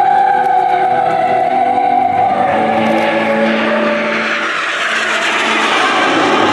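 Turbojet engines of an Aermacchi MB-339 formation coming head-on, a roar that builds and grows brighter through the second half, with opera music behind it.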